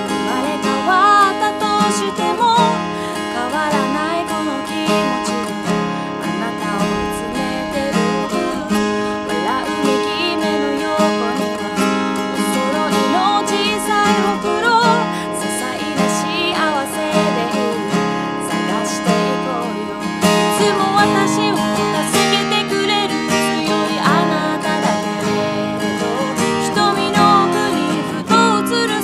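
A woman singing in Japanese while strumming an acoustic guitar, one voice with one guitar.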